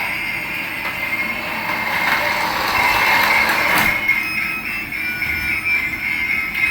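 Small electric toy motor and plastic gears whirring with a steady high whine, with a click about four seconds in.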